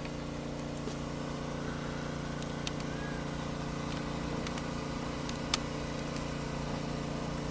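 A steady low hum like an engine idling, with a few faint clicks.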